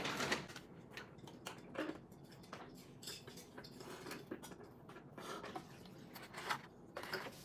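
Scattered light clicks, taps and rustling of things being handled at a table, with a few sharper knocks, the loudest right at the start.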